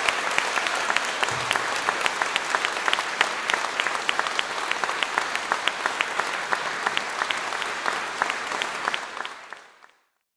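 Audience applauding at the end of a concert, a dense sound of many hands clapping, fading out near the end.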